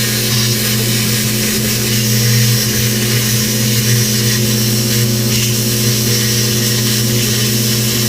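Plasma cutter cutting steel: a steady hiss with a low electrical buzz, running without a break.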